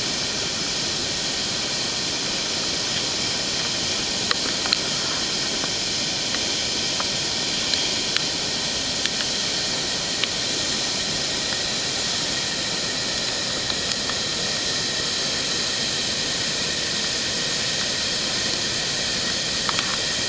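Steady rushing of a high waterfall falling about 62 metres into a pool, heard as a dense, even hiss. A few brief, faint ticks are scattered through it.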